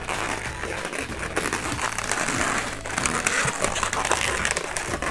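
Inflated latex modelling balloon rubbing and crinkling against the hands as it is measured and twisted, with many small sharp ticks.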